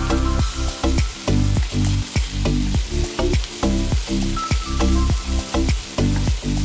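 Seasoned pork pieces sizzling in a hot frying pan while being stirred with chopsticks, over background music with a steady beat.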